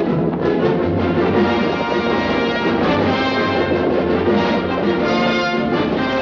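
Orchestral film score with prominent brass, in the style of a classic western soundtrack.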